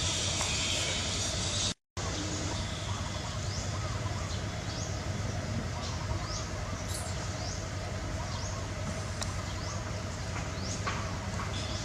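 Steady outdoor background noise with a low hum. It drops out for a moment about two seconds in, then comes back with a run of short, high, rising chirps repeating every half second or so.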